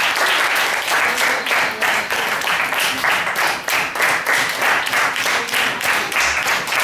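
A class of schoolchildren applauding, many hands clapping in a dense, continuous patter.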